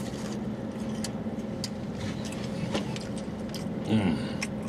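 Steady hum of an idling car heard from inside the cabin, with small clicks of chewing and handling food, and a brief low voiced sound about four seconds in.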